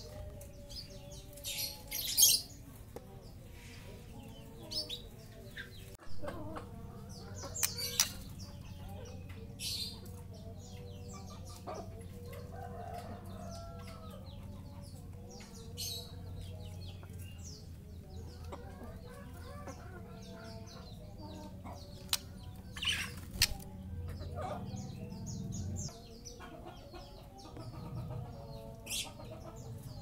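Young white-rumped shama (murai batu) in its cage: scattered short, sharp high chirps and clicks, with lower clucking calls and a low steady hum behind them for most of the time.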